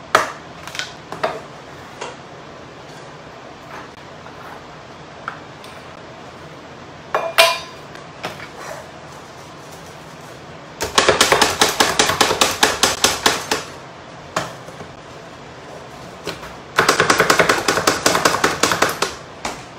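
Plunger-style manual food chopper being pumped down on nuts: two runs of rapid clacking strikes, each about three seconds long, after a few single knocks.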